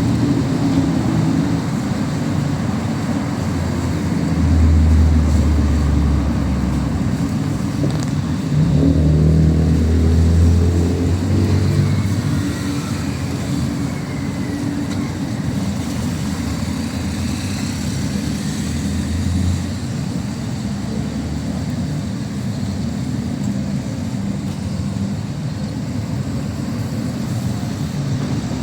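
City street traffic: cars passing with a low engine rumble over a steady street hum, swelling loudest about five and ten seconds in.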